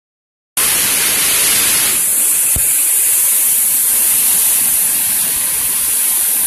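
Turbulent white water rushing out below a dam into the river channel, a loud steady rush. It starts about half a second in.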